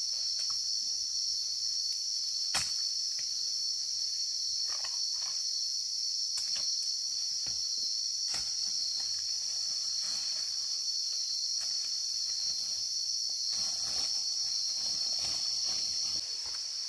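Steady, high-pitched buzz of an insect chorus in the forest, with a few sharp snaps and light rustling of someone moving through the undergrowth.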